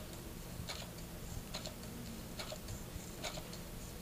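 Electric sewing machine on its slow setting, stitching through a paper practice sheet: a sharp tick at each stitch, a little more than one a second, with fainter ticks between over a low steady hum.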